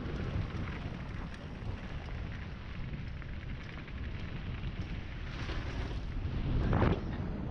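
Specialized Stumpjumper mountain bike rolling fast down a dirt trail: tyres running over the ground with scattered rattles and clicks from the bike, under heavy wind noise on the microphone. The noise swells a little before the end.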